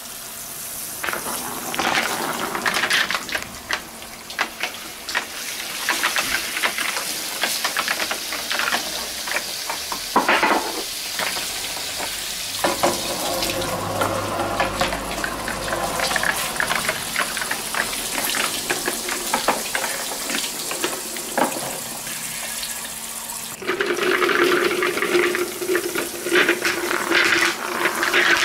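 Shower spray hissing onto plastic rain gutters and water running down them, with plastic balls clicking and knocking as they roll along the wet gutters. A steady low hum joins near the end.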